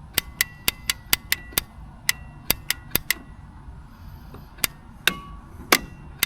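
Ford F-150 starter solenoid clicking repeatedly as it is energized from a jump pack: about fifteen sharp, irregular clicks in bunches, each with a faint metallic ring. The solenoid that was thought dead is working, which the owner takes as a sign the no-start may have been a bad ground.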